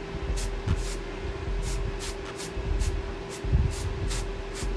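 Aerosol can of temporary hair colour spray going off in short hissing puffs, about ten of them, roughly two a second, as it is sprayed along a hair part.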